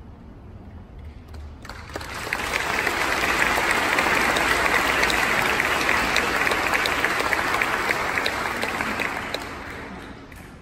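Audience applauding. The clapping starts about two seconds in, swells to a steady level, and begins to fade near the end.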